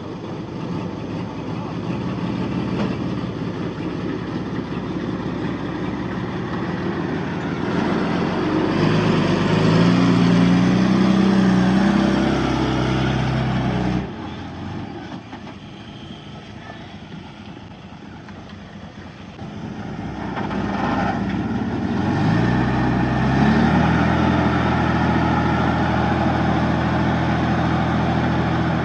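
Komatsu D31P bulldozer's diesel engine working, revving up under load twice: its pitch and loudness climb about a third of the way in, drop off suddenly about halfway, then climb again and hold steady near the end.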